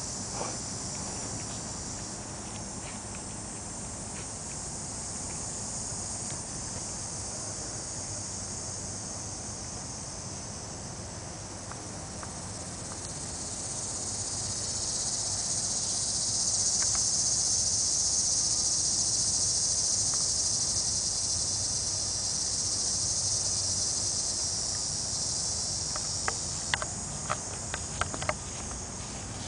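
Insects droning in a steady high band, swelling louder midway and easing off again later. A few sharp clicks come near the end.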